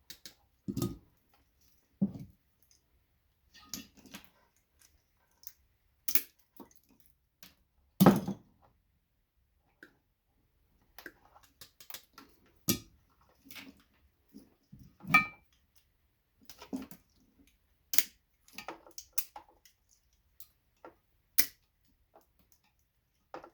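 Irregular small clicks, snaps and taps of Christmas-light bulbs being pulled and broken out of their plastic sockets by hand, with a louder knock about eight seconds in.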